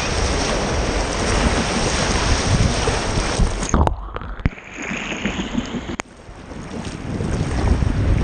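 Wind buffeting the microphone over the wash of ocean surf, with a heavy low rumble. The noise drops away suddenly a little before halfway and comes back about two seconds later.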